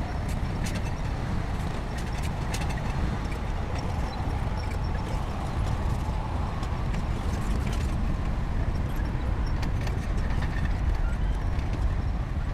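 Shantui crawler bulldozer's diesel engine running steadily as the machine works, with scattered light clanks throughout.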